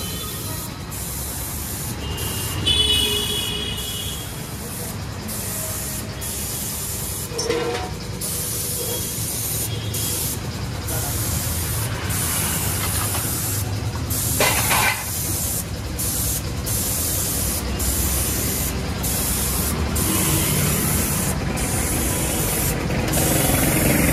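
Compressed-air spray gun hissing as it sprays polish over a scooter, in bursts of about a second broken by short gaps as the trigger is let go, over a low rumble of road traffic. A brief high beep comes about three seconds in, and a short clatter about halfway through.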